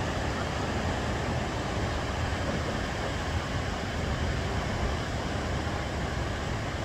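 Steady rumble and hiss of ocean surf breaking on a beach.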